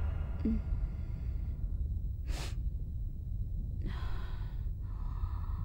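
A person's soft breaths, a few short breathy puffs about two and a half, four and five seconds in, over a low steady rumble.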